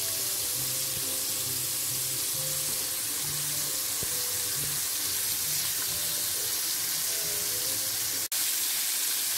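Battered shrimp deep-frying in hot oil in a wok: a steady crackling sizzle. Soft background music plays underneath until the sound cuts out for an instant near the end, after which only the sizzle remains.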